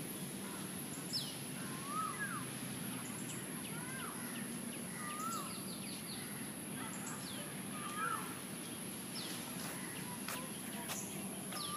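Birds calling in trees: one repeats a short rising-then-falling call about every two seconds, with scattered higher chirps from others, over a steady outdoor background hum.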